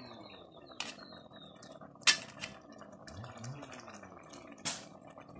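Steel ladle clinking against a steel pot and bowl while food is served: a few sharp clinks, the loudest about two seconds in and another near the end.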